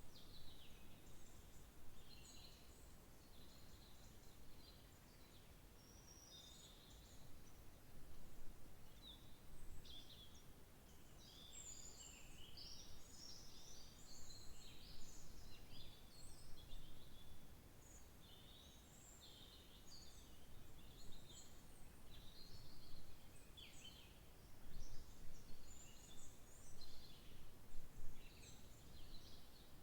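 Several small birds chirping and singing in short, high phrases that overlap and come thickest in the middle and near the end, over a faint low rumble of background noise.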